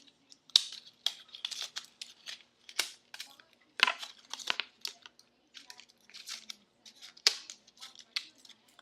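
Plastic packaging of an iPhone 4 bumper case crinkling, crackling and tearing as it is worked open by hand, with several sharp cracks among the rustling.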